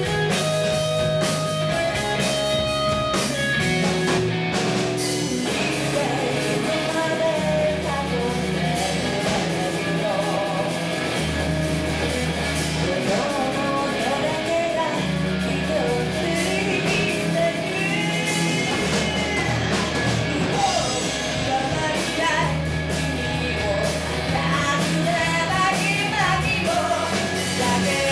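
Live rock band playing electric guitar, bass guitar and drums. A woman comes in singing lead about five seconds in.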